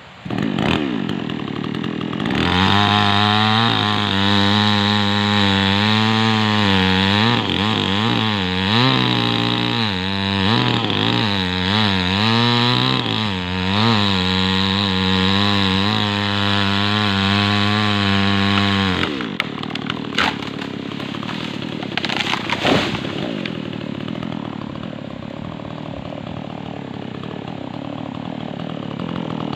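Two-stroke chainsaw revved to high speed and cutting rubber-tree wood, its pitch dipping and recovering again and again as the chain loads in the cut. About two-thirds of the way through it drops off suddenly and runs on more quietly, with a few sharp knocks.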